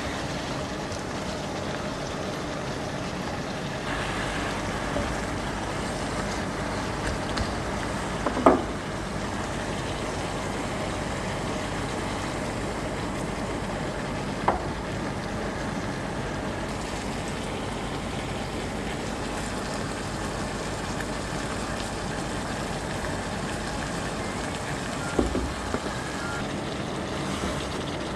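Steady cooking noise from a pan of green beans and pork on the stove, broken by sharp knocks of a spatula against the pan about a third of the way in, at the midpoint, and a short cluster near the end.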